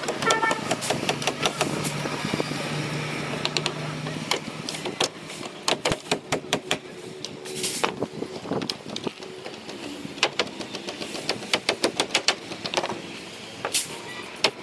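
Hammer blows nailing timber formwork boards, coming in quick runs of sharp strikes. A low engine hum runs underneath for the first few seconds.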